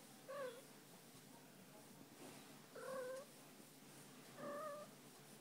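A domestic cat gives three short meows, spread over a few seconds, while its belly is rubbed.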